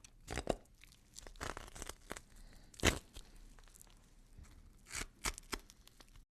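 Faint, irregular crackling and rustling noises with short louder bursts about half a second in, near three seconds and near five seconds. They cut off suddenly just before the end.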